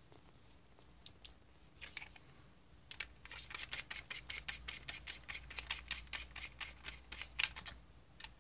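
Small screwdriver driving screws into the plastic housing of a car's climate control panel: quick, irregular clicking, a few scattered clicks at first, then a dense run from about three seconds in.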